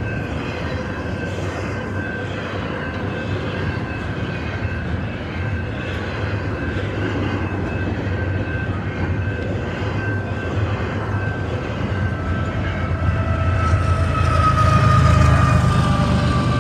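Canadian Pacific freight train rolling past: a steady rumble and rail noise from the moving cars, with a few thin steady whining tones over it. About 14 seconds in, the rumble swells to its loudest and one tone slides slightly lower.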